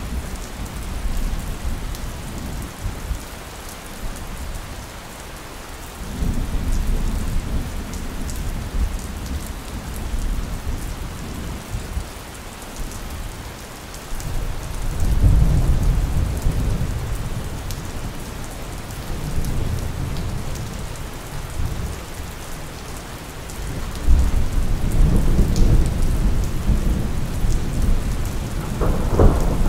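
Steady rain with thunder rumbling low beneath it; the rumbles swell three times, about six seconds in, around the middle, and again near the end.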